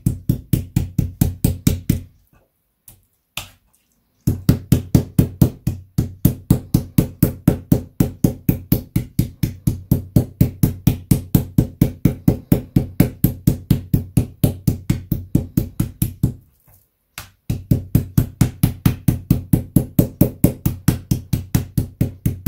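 Metal meat-tenderizer mallet pounding a pork slice on a wooden cutting board: a steady run of blows about four a second, tenderizing the meat. The pounding breaks off briefly about two seconds in and again near the sixteen-second mark.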